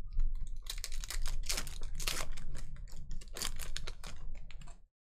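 Foil wrapper of a Panini Contenders football card pack crinkling and tearing as it is ripped open by hand: a dense run of crackles that cuts off abruptly near the end.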